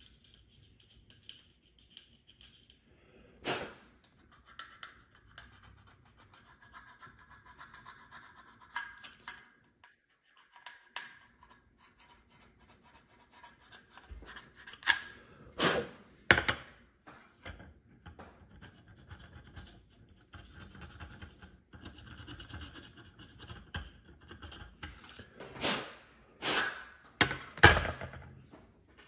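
Handling noise of small parts on a granite countertop: the plastic-housed ABS control module and a thermal paste syringe being picked up and set down, giving scattered sharp knocks and clicks with faint rubbing between. A few knocks come about halfway through and a tighter cluster near the end.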